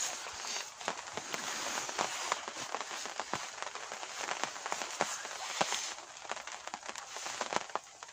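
Rain falling: a steady hiss with many sharp, irregular drop ticks close by.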